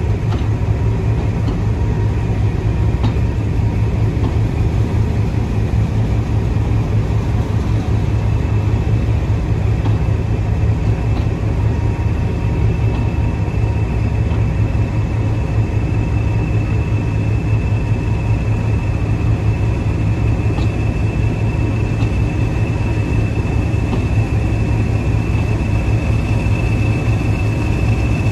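Diesel-hauled heritage train of coaches rolling slowly past, a steady low rumble of engines and wheels with occasional clicks. A high whistle grows louder from about halfway as the rear pair of English Electric Class 20 diesel locomotives draws near.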